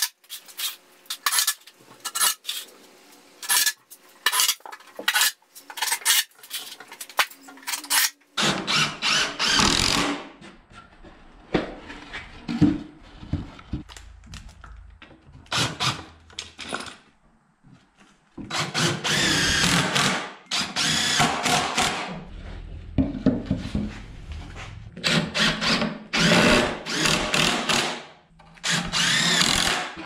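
A run of short sharp knocks for the first several seconds, then a cordless drill driving screws into wooden framing in repeated bursts of a few seconds each, its motor pitch wavering under load.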